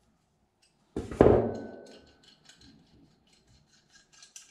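A sharp metallic knock about a second in that rings briefly as it fades, from hand tools and a small metal fitting, followed by light clicks of the parts being handled.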